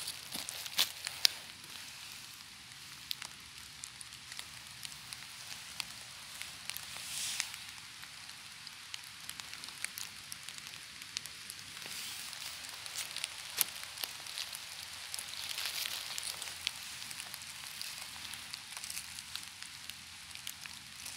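Dry fallen leaves and twigs on a woodland floor rustling and crackling as they are stepped on and handled, with sharp snaps and clicks scattered throughout.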